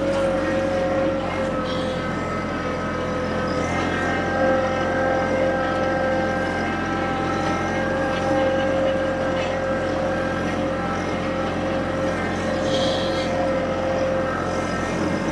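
TYM T264 compact tractor's three-cylinder diesel engine running at a steady speed while it tows a broadcast spreader across tilled soil.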